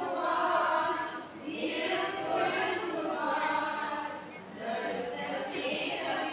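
A women's choir singing a Christmas carol together, in long sung phrases with brief breaks for breath.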